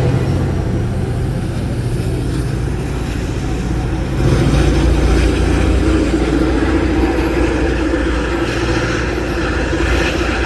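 Caltrain push-pull train running, a steady diesel rumble with wheel and rail noise; the EMD F40PH-2CAT locomotive's engine drone grows louder about four seconds in.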